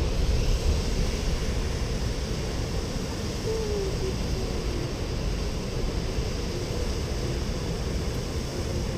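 Steady wind noise buffeting the microphone, with a brief faint tone about three and a half seconds in.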